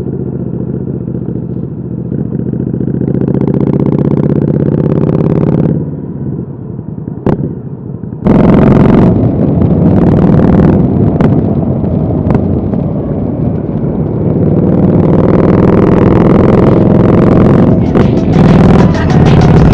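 Indian Scout Bobber V-twin with a Dr. Jekill & Mr. Hyde aftermarket exhaust, ridden: the revs climb for about six seconds and then drop off. About eight seconds in the exhaust turns suddenly much louder and stays loud, with a few brief dips in the revs.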